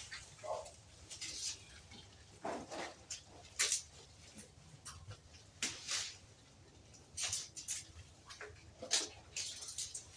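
Goats in a pen: scattered short rustles and knocks, with a few brief faint calls.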